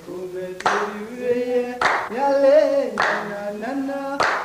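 A voice singing long, sliding notes, with a sharp clap-like hit about every second and a quarter, four in all.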